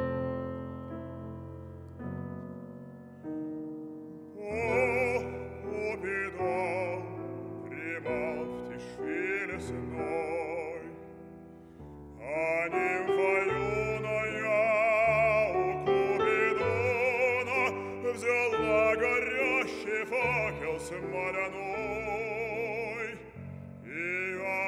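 Bass-baritone singing a Russian art song with grand piano accompaniment. The piano plays alone at first, and the voice comes in with a wide vibrato about four and a half seconds in.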